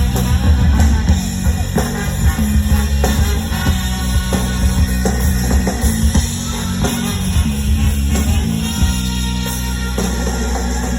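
Live ska-punk band playing loud, with distorted electric guitar, bass and a drum kit, recorded from the audience with a heavy, boomy low end.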